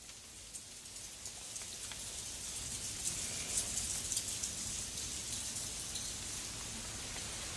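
Hot water pouring from a cast-iron teapot into a porcelain tea cup, a splashing hiss with many small patters that swells over the first few seconds and then runs steadily.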